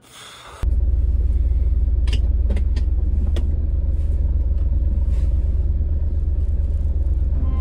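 Car engine running, heard from inside the cabin as a loud, steady, deep rumble with a fine pulse, and a few faint clicks on top. A short rush of noise comes just before the rumble starts, about half a second in.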